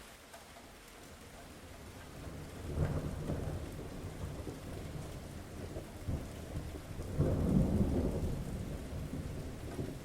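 Steady rain with two long, low rolls of thunder, one swelling about three seconds in and a louder one about seven seconds in, each slowly dying away.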